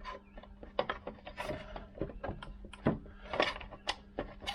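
Irregular knocks, clicks and scrapes as a Vespa PX spare wheel and its wheel cover are handled and twisted to line up the cover's captive screw.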